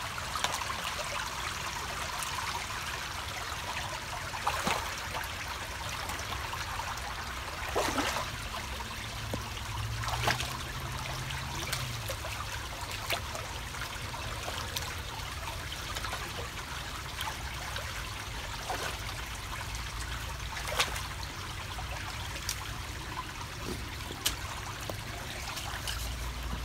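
Shallow creek water trickling steadily over rocks, with a few brief sharp clicks now and then.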